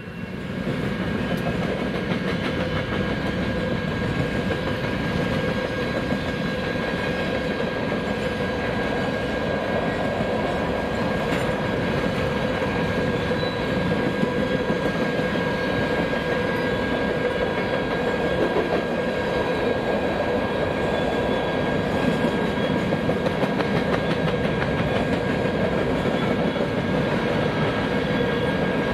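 BNSF grain train rolling past: the lead GE Evolution-series locomotive goes by first, then a long string of covered hopper cars, a steady rumble of steel wheels on rail with clickety-clack over the joints. A few thin steady ringing tones run over the rumble.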